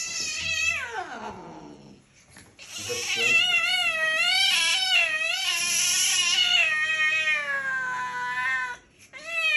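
Angry long-haired tabby cat yowling as it is held down: a falling yowl at the start, then after a short pause a long wavering yowl of about six seconds that slowly sinks in pitch, and another yowl beginning near the end.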